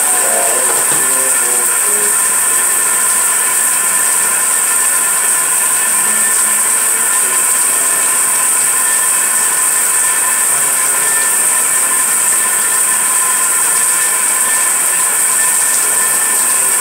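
Handheld hair dryer running steadily: a loud, even rushing hiss of blown air with a faint motor whine underneath.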